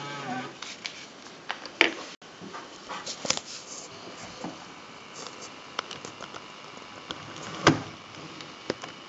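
Handling noise from a Sony Hi8 camcorder and its infrared remote: scattered clicks and knocks of buttons and casing, the two loudest about two seconds in and near the end.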